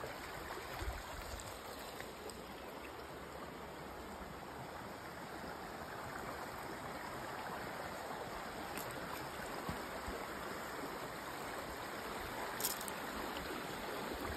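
Steady rushing of a small creek running fast, deep and full with high spring flow.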